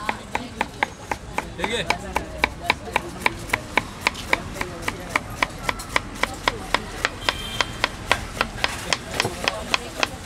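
Kitchen knife slicing a green capsicum into thin strips on a plastic cutting board, the blade tapping the board in a steady rhythm of about four strokes a second.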